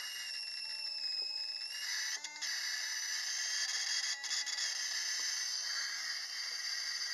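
Spark plug arcing continuously, fired by a MOSFET-driven 12-volt ignition coil: a steady high hiss with a thin whine over it.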